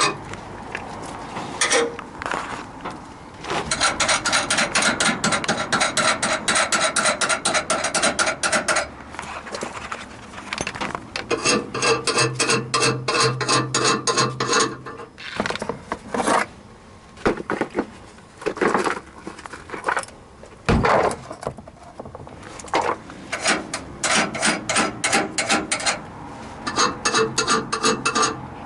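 Ratchet wrench clicking in several bursts of rapid, even clicks, with scattered knocks and scraping of tools and parts between them.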